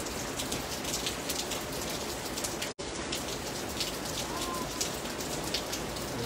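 Heavy rain falling steadily, with many close drops striking in sharp little ticks over the general hiss of the downpour. The sound cuts out for an instant about three seconds in.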